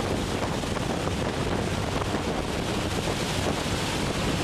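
Steady rush of wind through the open door of a skydiving jump plane in flight, over the drone of the aircraft's engine, with wind buffeting the microphone.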